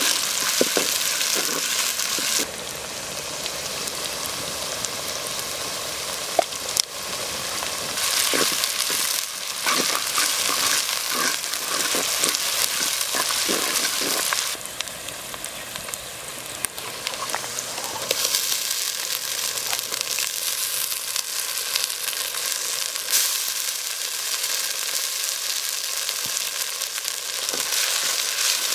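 Sliced onions, garlic and dried red chillies sizzling in hot oil in a clay pot while being stirred with a wooden spatula, with scraping from the stirring and a few sharp knocks. The sizzle swells and eases as the pot is stirred.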